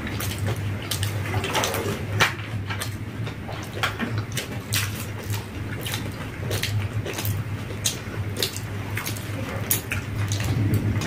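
Two people eating yogurt-filled doi fuchka (puchka) with their fingers: wet chewing and irregular sharp mouth clicks, over a steady low hum.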